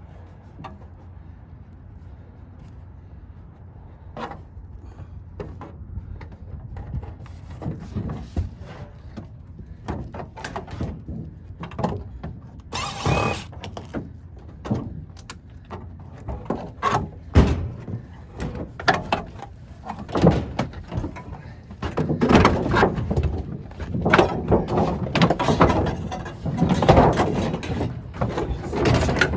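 An old sheet-metal HVAC plenum box being demolished: irregular knocks, bangs and scrapes of metal being pried and pulled apart, getting busier and louder in the last several seconds.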